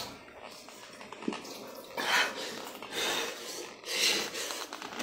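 Heavy breathing through the mouth: a few noisy breaths about a second apart, from someone whose mouth is burning after eating an extremely hot chip.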